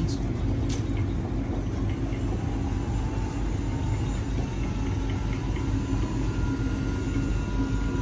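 Steady low rumble of a gas-fired Andrews water heater with its burner lit. The rumbling comes from heavy scale in the tank, a sign of long-neglected service and maintenance.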